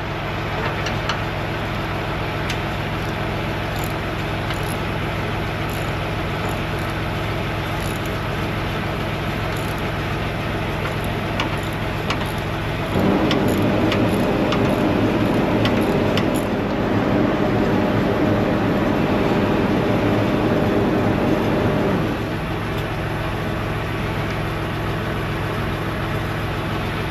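An engine idling steadily, with scattered light metallic clicks of tools being handled. About thirteen seconds in, a louder, fuller running sound joins it for about nine seconds, then cuts off.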